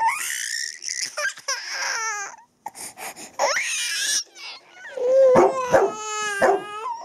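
Young Bernese Mountain Dog whining and yelping in high, wavering cries, with a quick run of short yelps near the end: the dog is worked up and excited.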